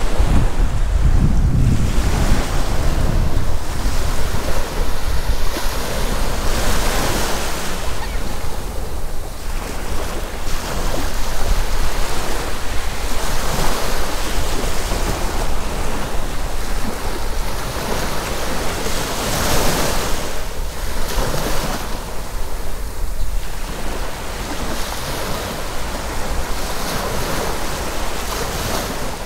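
Sea waves breaking and washing up the beach, swelling in surges every few seconds. Wind buffets the microphone, with a heavy low rumble strongest in the first few seconds.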